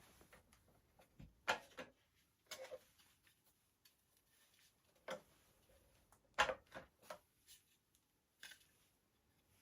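Irregular clicks and light knocks of airsoft gun parts being handled and fitted, about nine in all, the loudest about a second and a half in and again about six and a half seconds in.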